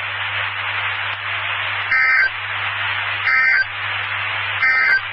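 Three short bursts of warbling digital data tones, about a second apart, over steady radio hiss and a low hum. This is the NOAA Weather Radio SAME end-of-message code closing a warning broadcast, relayed over an amateur radio repeater.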